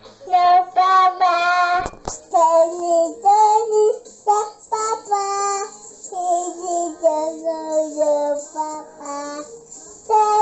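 A young child singing a wordless, babbled tune into a handheld karaoke microphone, in short high-pitched phrases, with a brief knock about two seconds in.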